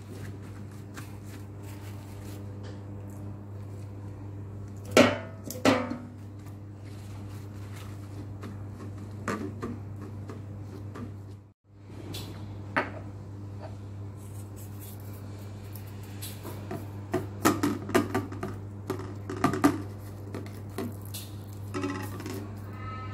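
Hands handling a salmon fillet and paper towels in a stainless steel bowl and plate, making scattered clinks and knocks on the metal. The loudest are two sharp knocks about five seconds in and a run of clinks in the last third, over a steady low hum.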